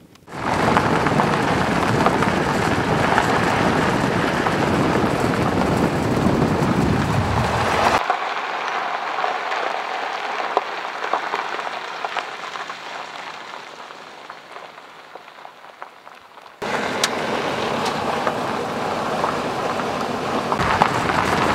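Steady gritty noise of a 4x4 pickup's tyres on a gravel mountain road, mixed with wind on the microphone. It changes abruptly twice: about a third of the way in it drops in level and fades away, then comes back loud near the end.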